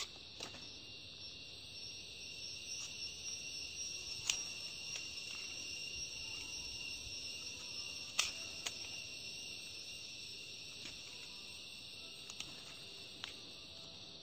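Steady high-pitched chorus of insects chirring, with a few sharp clicks scattered through it as a grafting knife cuts and shapes an avocado scion.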